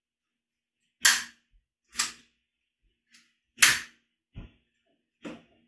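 Long-nosed utility lighter's trigger being clicked: three sharp snaps of the spark igniter about a second apart, then two softer clicks. A flame is lit at the tip by the third click.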